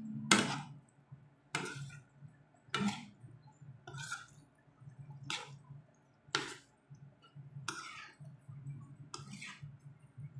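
Metal spoon and fork scraping and stirring wet scrambled egg and sayote around a nonstick frying pan, in short strokes about once a second, over a low steady hum.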